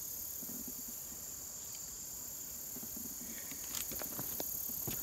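Insects buzzing steadily in a high pitch. About three and a half seconds in, footsteps begin crunching on loose rocks and gravel.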